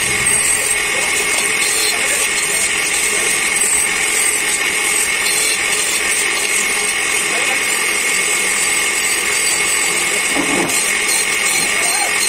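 Bench grinder running steadily while the metal housing of a truck spring brake chamber is pressed against its spinning wheel, an even, continuous scraping hiss of the wheel cleaning the metal.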